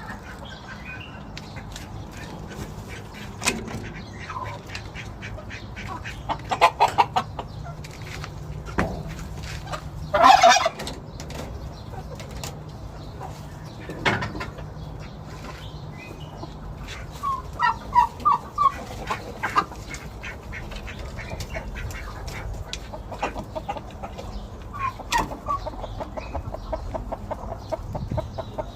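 Chickens clucking, with a louder call about ten seconds in and a quick run of clucks about two-thirds of the way through, over frequent light clicks and a steady low hum.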